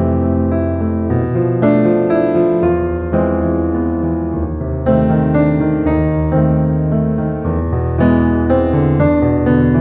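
Background music played on piano, with the chords and bass changing roughly every two and a half seconds.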